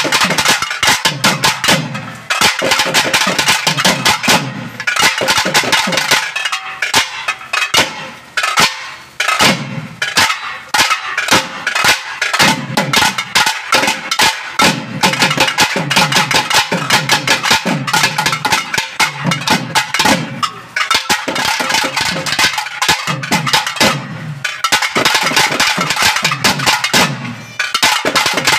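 Naiyandi melam folk band playing: thavil drums beaten in fast, dense strokes under a continuous nadaswaram melody.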